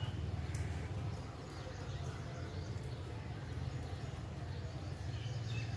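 Wind buffeting the microphone with a steady low rumble over a faint hiss of monsoon weather outdoors. Faint bird chirps come through, mostly near the end.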